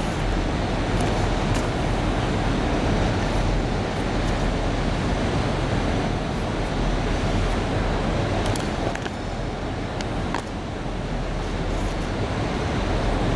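Steady urban background noise: a constant low rumble of road traffic, with a few faint clicks past the middle.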